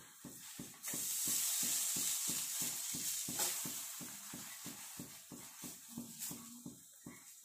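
Aloo paratha frying on a hot tawa: ghee hits the pan with a sudden sizzle about a second in, which then slowly dies down.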